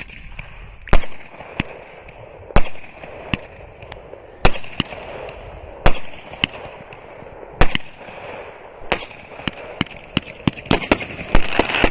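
Consumer fireworks cake firing: a string of sharp bangs, about one a second, coming faster near the end, over a steady crackling hiss.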